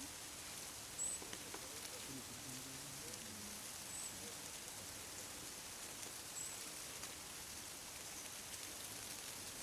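Soft, even rustling patter of the wings of a great mass of monarch butterflies in flight, like light rain. A short high chirp recurs every two to three seconds, and faint voices are heard in the first few seconds.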